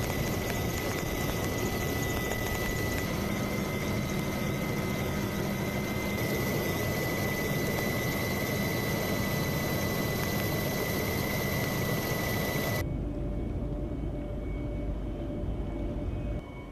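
Steady mechanical running noise with a high steady whine, typical of an engine or aircraft. Near the end it changes suddenly to a quieter, deeper rumble.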